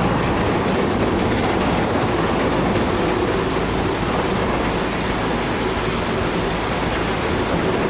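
A loud, steady rumbling noise.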